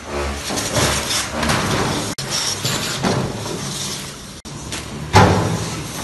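Blue plastic crates loaded with durians scraping and knocking as they are slid through a wall hatch, with one loud thud about five seconds in, over a steady background noise.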